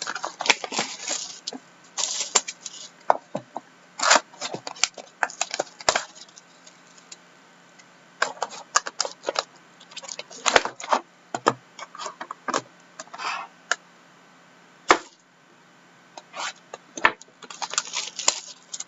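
Trading card box packaging being opened by hand: irregular sharp crackles, clicks and tearing of wrapper and cardboard, in clusters with short pauses.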